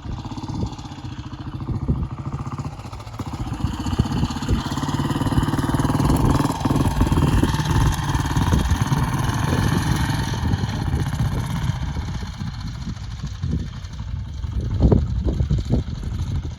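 1940 Ariel W/NG motorcycle's single-cylinder engine running, getting louder for several seconds and then easing back, with a few sharp knocks near the end.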